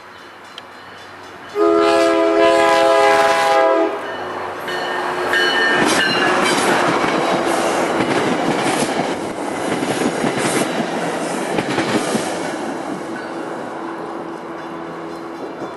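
Diesel locomotive's air horn sounds one long blast of about two seconds as a commuter train approaches. The train then passes close by, its wheels clattering over the rail joints, and the sound slowly fades near the end.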